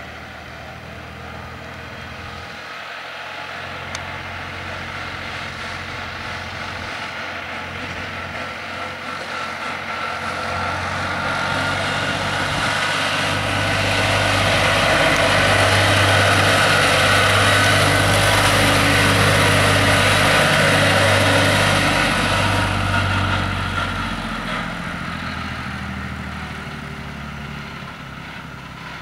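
Valmet 33 Diesel tractor's diesel engine running steadily as the tractor drives past. It grows louder toward the middle as it passes close and fades as it moves away near the end.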